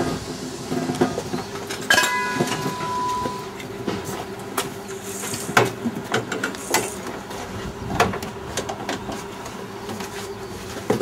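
Mechanics working on a race car: a steady hum with many scattered clicks and knocks of metal parts and tools, and a short held tone about two seconds in.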